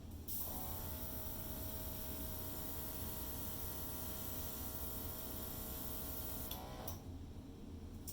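Airbrush running: a steady hiss of air with the whine of its compressor, starting just after the opening and cutting off about seven seconds in.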